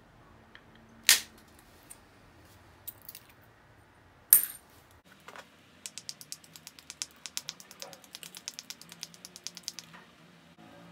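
Two sharp cracks of an antler billet striking flakes off the edge of a flint biface, about three seconds apart. Then a rapid run of scratchy ticks for about four seconds as a stone abrader is rubbed along the biface's edge to grind it down.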